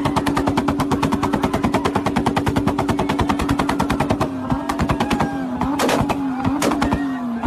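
Toyota Supra's exhaust crackling on anti-lag: a rapid, even string of bangs, about ten a second, over the engine held at steady revs. About four seconds in the bangs thin out to a few louder single pops as the revs rise and fall.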